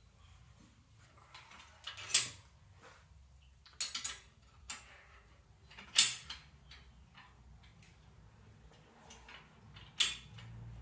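Sharp metal clanks and clinks of steel round stock and the bender's pins and dies being handled on a manual bench metal bender. About half a dozen separate knocks, the loudest about two seconds in, about six seconds in and near the end.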